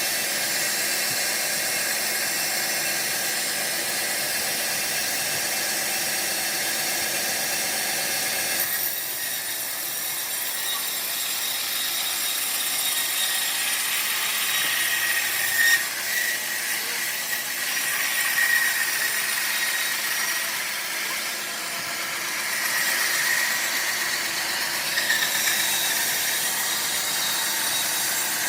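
Homemade sawmill running, its blade cutting through a large log with a steady mechanical drone. The sound shifts about nine seconds in, after which a high whine wavers up and down as the cut goes on.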